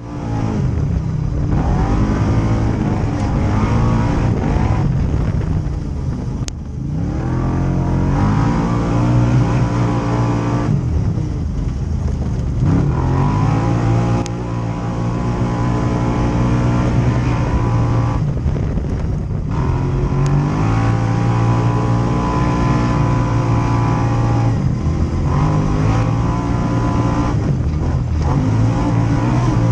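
Side-by-side UTV engine running hard on a dirt track, its pitch climbing with throttle and dropping back several times as the driver lifts off.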